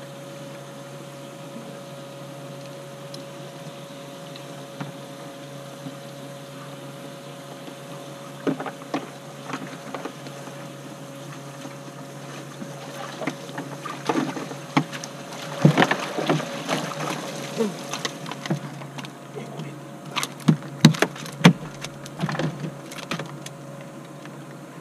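Electric boat motor humming steadily. Scattered knocks and clicks on the boat start about eight seconds in and grow busier in the second half.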